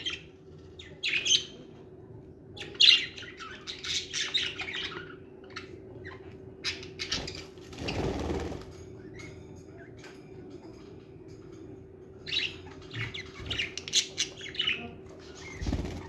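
Budgerigars chirping and chattering in several bursts, with a brief flurry of wing flapping about halfway through. A faint steady hum runs underneath.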